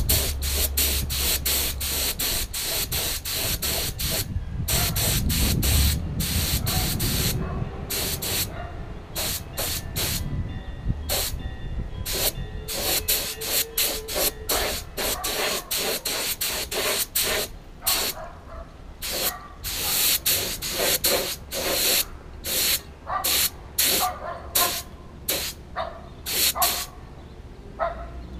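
Paint spray gun hissing as it sprays gloss black acrylic enamel, nearly continuously for the first several seconds, then in many short bursts as the trigger is pulled and released.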